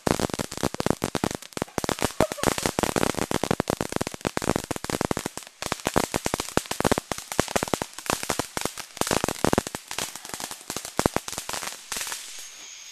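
A long string of firecrackers going off: many sharp cracks in rapid, irregular succession, thinning out and stopping near the end.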